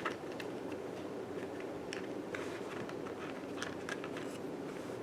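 Faint scattered clicks and taps of small plastic and metal tool-kit parts being handled, over a steady low background hum.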